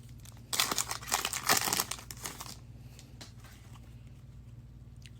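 Foil wrapper of an Optic football trading-card pack crinkling and tearing open for about two seconds, then a few faint ticks over a low steady hum.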